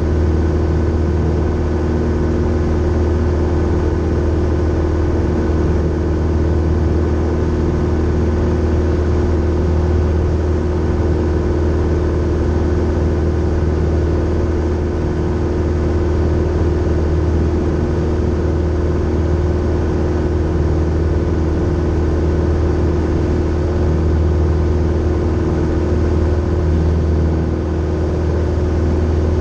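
Grumman Tiger's four-cylinder Lycoming engine and propeller running steadily in flight, a constant drone heard inside the cabin.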